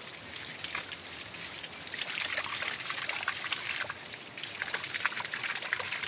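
Water from a waterfall stream trickling and splashing steadily, with many small, quick splashes.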